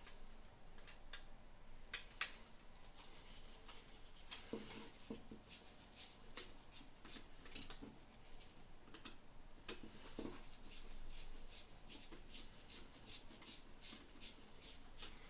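Faint handling noises of small hardware being worked by hand: many light clicks and ticks with some scraping, and a few duller knocks about four and a half seconds and ten seconds in.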